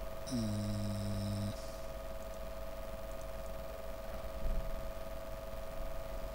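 Steady electrical hum from the recording setup. Shortly after the start comes a person's drawn-out vocal sound lasting about a second.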